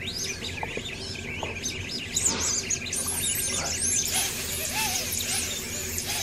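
Small quadcopter's electric motors whining at high pitch, the pitch rising and falling quickly and unevenly as the hand-held drone is swung and tilted and its flight controller, in air mode, speeds the motors up and down.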